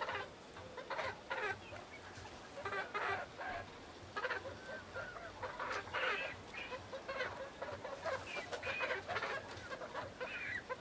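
Young pearl-grey Italian chickens clucking and chattering in many short, overlapping calls as they settle on their roost for the night.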